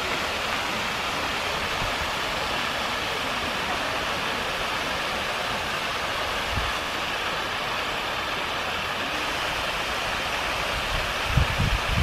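Artificial waterfall pouring in several streams down a cliff of stone columns into a pond: a steady, even rush of falling water. Low, gusty rumbles come in near the end.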